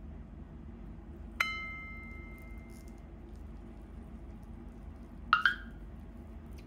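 A single bell-like ding, an edited-in sound effect, about a second and a half in, ringing for about a second and a half over faint room hum; a short pitched blip follows near the end.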